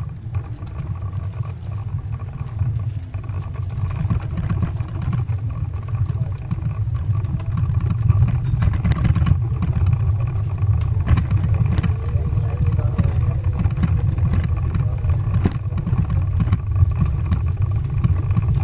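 Wind buffeting the microphone over the rumble of a bicycle riding on brick paving, with sharp rattles from bumps in the bricks, more frequent in the second half.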